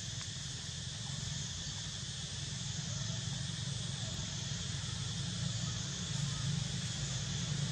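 Steady outdoor ambience: a continuous high insect drone over a constant low rumble, with no distinct events.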